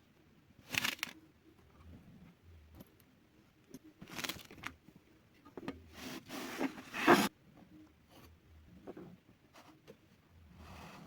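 Kinetic sand being cut and scraped: a series of short noisy strokes, with the longest and loudest stretch about six to seven seconds in.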